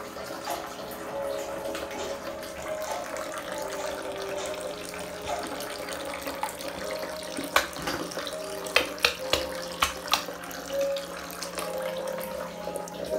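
Running or splashing water as a steady hiss. A handful of sharp clicks or knocks come in the middle, and soft tones of background music sit underneath.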